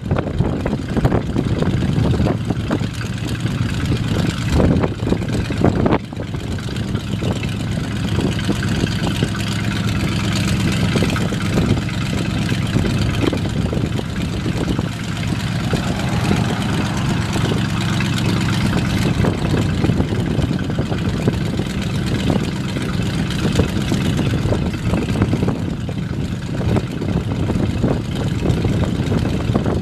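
1975 Chevrolet C65 grain truck's 366 cubic-inch gasoline V8 idling steadily, with a few thumps in the first six seconds.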